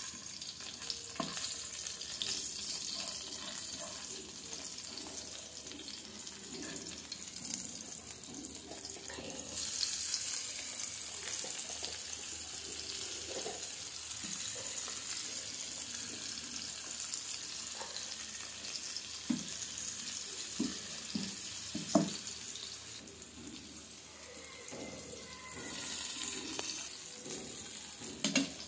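Hilsa fish steaks and sliced onions frying in hot oil in a pan: a steady sizzle that swells about ten seconds in and again near the end. A few short knocks of a wooden spatula against the pan come past the middle.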